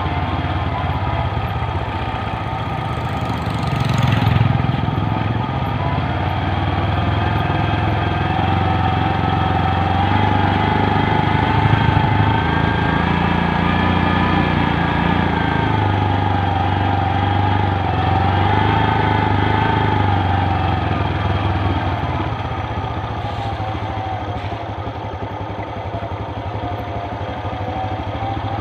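Motorcycle engine running as it is ridden: a steady drone, with a thin whine that wavers in pitch through the middle stretch.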